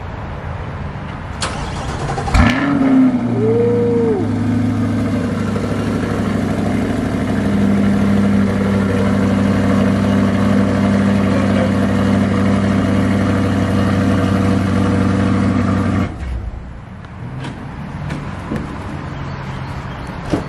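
Chevrolet C8 Corvette's V8 being started: a sharp crank, a rev flare that rises and falls as it catches, then a steady idle. The engine is shut off abruptly a few seconds before the end.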